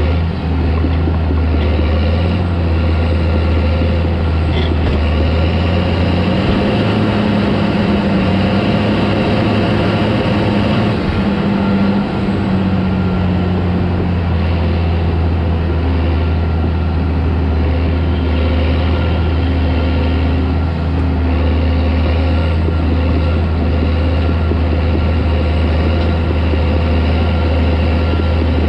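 Caterpillar D4 crawler tractor's diesel engine running steadily while it works, its tone rising for several seconds about a quarter of the way in before settling back.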